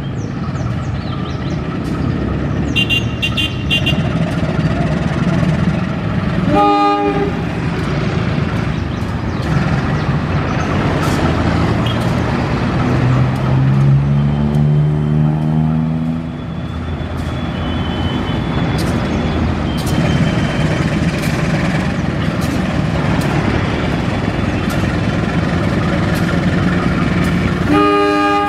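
CC 201 diesel-electric locomotive running as it hauls a string of tank wagons past at low speed, its engine note rising for a few seconds about halfway through. Its air horn gives a short toot about seven seconds in and starts sounding again at the very end, over traffic noise.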